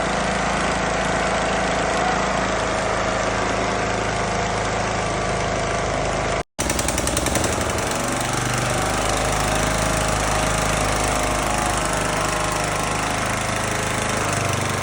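Lawn mower's freshly swapped-in engine running steadily just after its first successful start, cut by a brief gap of silence about six and a half seconds in.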